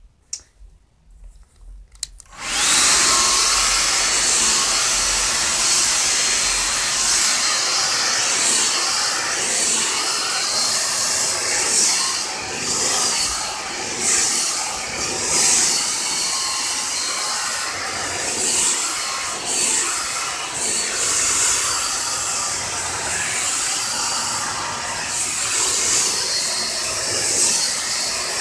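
Blow-dryer straightener switched on at its high setting about two seconds in, then running with a loud, steady rush of air and a faint whine, its sound wavering a little.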